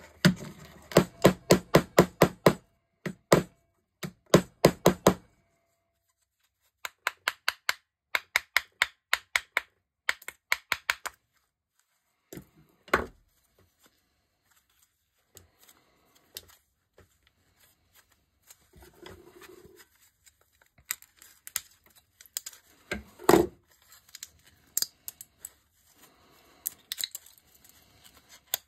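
Small hammer striking the thin sterling silver shell of a weighted candlestick, knocking out its white filler: two runs of quick, even taps about three a second, then a single knock. In the second half the thin silver sheet is bent and crumpled by gloved hands, with a few scattered knocks.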